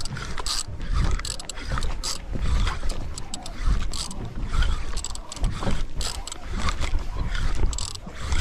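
Spinning reel being cranked and handled, with irregular clicks and knocks, over an uneven low rumble.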